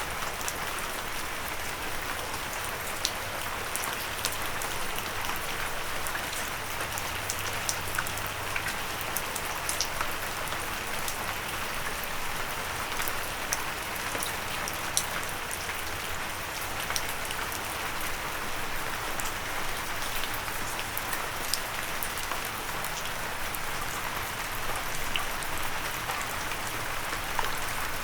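Steady rain with many separate drops ticking sharply on a windowsill.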